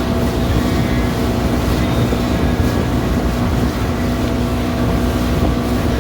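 Boat motor running steadily underway, a constant engine hum over rumbling wind and water noise.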